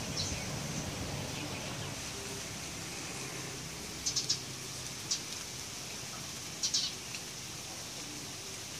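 Plain prinia giving short, high chirps in small clusters: about three quick chirps around four seconds in, a single one a second later, and another quick cluster near seven seconds, over a steady high hiss.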